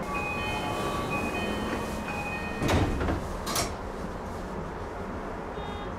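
Inside a Tokyu electric commuter train car: steady running noise with several thin steady tones for the first two seconds. About three seconds in come two short, loud hissing sweeps, the car's sliding doors moving.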